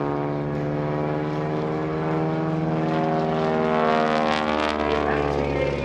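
Grumman AgCat biplane's radial engine and propeller droning in aerobatic flight. The engine note bends in pitch and swells to its loudest about four seconds in as the plane manoeuvres past.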